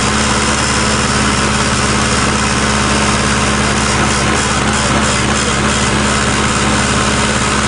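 Diesel engine of a mini tractor puller idling steadily.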